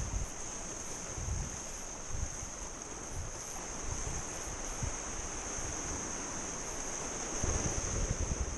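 Sea surf washing against shore rocks, with wind gusting on the microphone in irregular low rumbles that grow stronger near the end. A steady high-pitched tone sits behind it.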